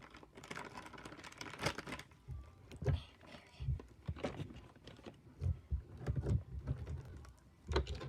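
Sticky bead-filled slime being squished and stretched by hand, with irregular crackling and clicking as the beads crunch inside it, and a few dull thumps from the handling.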